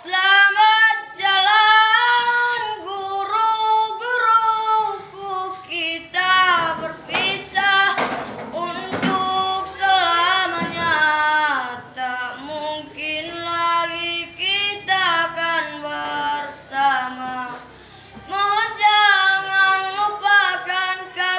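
A boy with a high, unbroken voice singing solo without accompaniment, in long held notes with short breaks between phrases.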